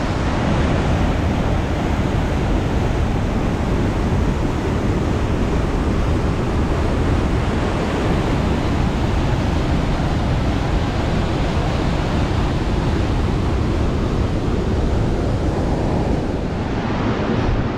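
Steady roar of fast-rushing whitewater from a mountain river and waterfall, with wind buffeting the microphone.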